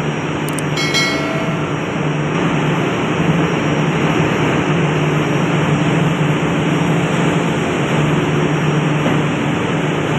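Steady, loud drone of a ship's engine-room machinery, with a short metallic ring, like a tool striking a steel part, about a second in.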